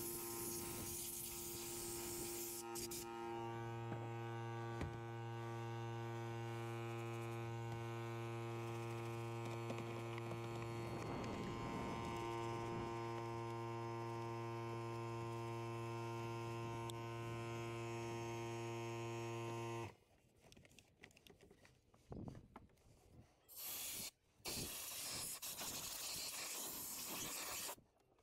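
A small electric motor humming steadily, cutting off abruptly about two-thirds of the way through, followed by several short bursts of hissing.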